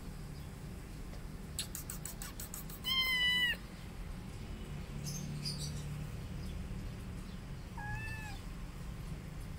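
A young tabby kitten meowing twice: a short, loud meow about three seconds in and a softer one near the end. A quick run of clicks comes just before the first meow.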